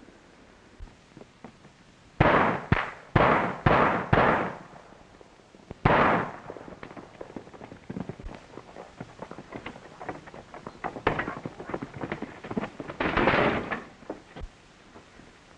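Pistol gunshots on an old film soundtrack: five shots fired in quick succession over about two seconds, then one more a moment later, each ringing off briefly. After them come faint, irregular hoofbeats of a galloping horse, with a brief louder rushing noise near the end.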